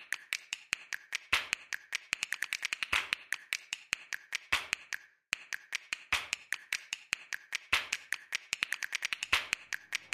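A rapid series of sharp, dry clicks, unevenly spaced and bunching into quick runs, with a short break about five seconds in.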